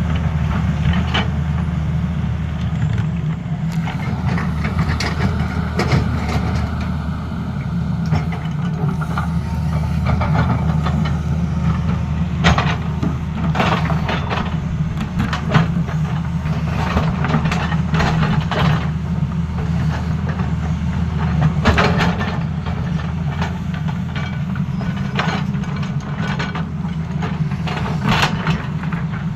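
Tata Hitachi excavator's diesel engine running steadily, with repeated short knocks and clanks from the machine at work.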